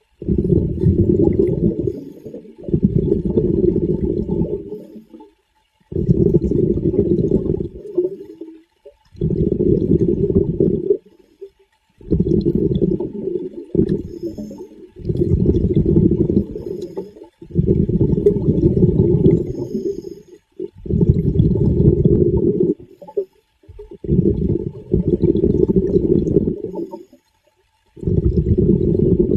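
Muffled water sloshing and rushing in repeated surges, each lasting a second or two, with short breaks between.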